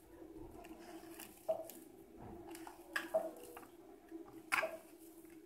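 Hands kneading maize-flour dough in a steel plate: soft wet squishing, with a few sharp clicks, about four, spread through.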